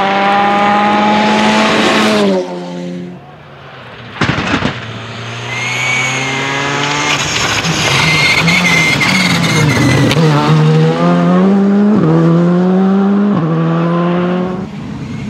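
R5 rally cars with 1.6-litre turbocharged four-cylinder engines driven flat out on a loose-surface stage, the engine note climbing and dropping in steps at each quick upshift. A short burst of sharp cracks comes about four seconds in. A high whistle rides over the engine for a few seconds.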